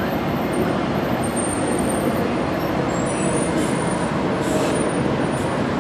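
DART light rail train (Kinkisharyo SLRV) running past close by as it pulls in along the platform, a steady rumble of wheels and traction motors.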